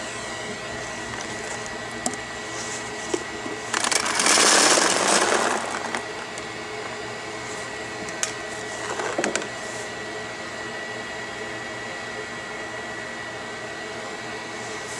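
Paintball marker being handled and reassembled: a few small clicks, and about four seconds in a hiss of compressed air lasting about two seconds, the loudest sound here, with a shorter, fainter hiss about nine seconds in. A steady hum runs underneath.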